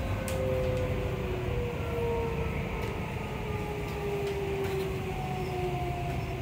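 Hitachi IGBT-VVVF inverter and traction motors of a Seibu 20000 series electric train, heard inside the motor car: several thin whining tones fall slowly in pitch as the train slows under braking, over a steady rumble of wheels on rail.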